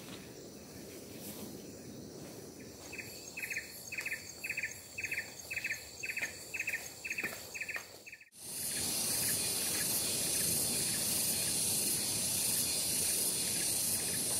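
Tropical forest ambience with an insect calling in short, rhythmic pulsed chirps, about two or three a second, from about three seconds in. Just past halfway it cuts off abruptly into a louder, steady outdoor hiss with a high-pitched insect drone on top.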